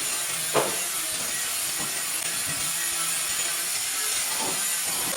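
Steady hissing noise of carpentry work on wood, with one sharp knock about half a second in and a few fainter knocks later.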